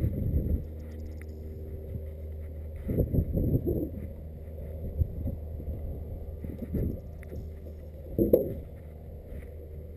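Irregular gusts of wind and handling bumps on a handheld camera's microphone, over a steady low drone. The sharpest bump comes about eight seconds in.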